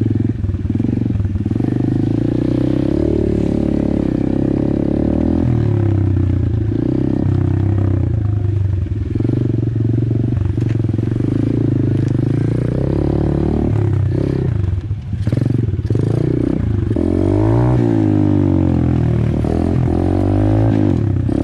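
Apollo RFZ pit bike's single-cylinder four-stroke engine running under way, the revs rising and falling with the throttle over rough ground, with rattling from the bike. The engine briefly eases off about two-thirds of the way through, then revs up and down quickly near the end.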